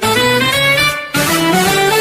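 An LG T300 Cookie Lite mobile phone plays a ringtone: a melody of short notes stepping up and down. The phrase breaks off about a second in and starts again.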